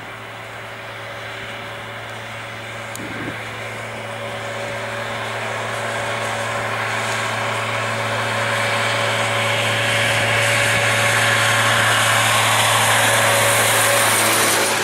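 Airbus A320-232 airliner's twin IAE V2500 turbofan engines at takeoff power: a steady low hum under a broad rushing jet noise that grows steadily louder as the aircraft takes off and climbs out.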